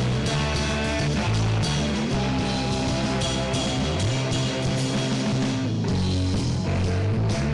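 A rock band playing live, with electric guitars and a drum kit.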